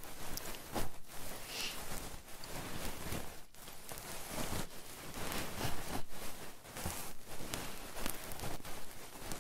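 Close-up rubbing and rustling on an ASMR microphone, in irregular soft strokes.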